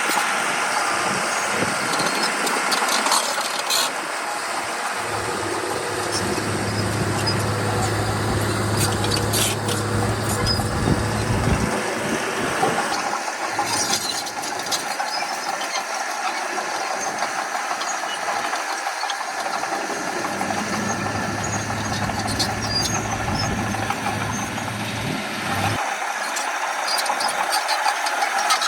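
Diesel engines of heavy earthmoving machinery running at a dump-and-push filling site. A deeper engine hum comes in twice, from about 5 to 12 seconds in and again from about 20 to 26 seconds in, over scattered metallic clanks and rattles.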